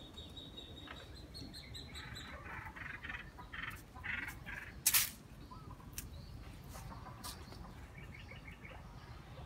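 Small birds chirping and calling in the background, with a sharp click about five seconds in.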